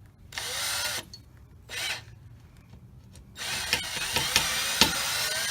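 Power drill with a Phillips bit driving a screw into a pilot hole, running in three bursts. The first two are short, and the last runs about two seconds with sharp clicks as the screw goes in.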